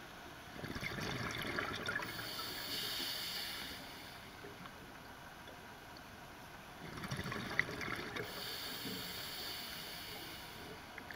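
A scuba diver's regulator breathing underwater: two breaths about six seconds apart, each a rush of crackling exhaust bubbles with a hiss, quieter in between.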